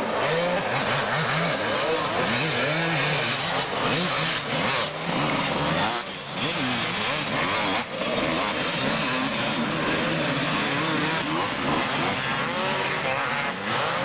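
250cc two-stroke motocross bikes racing, several engines revving up and down over one another as riders accelerate and back off, with two brief dips in the noise about six and eight seconds in.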